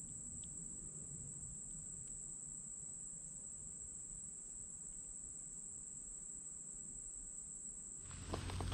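A steady, high-pitched drone of insects calling. Near the end, a low rumble with crackles comes in.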